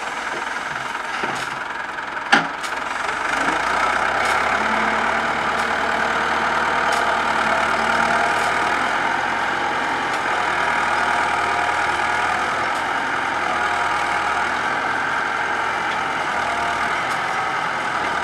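Engine of a sugarcane grab loader running steadily as the machine drives up to a truck and raises a bundle of cane on its hydraulic grab arm, with a few sharp metal clanks, the loudest about two seconds in.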